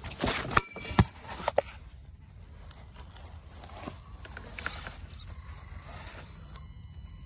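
Crunching steps through dry leaves and twigs, with a few sharp snaps in the first second and a half, then quieter rustling. From about six seconds in, a faint high steady whine comes in, which fits the RC car's electric motor.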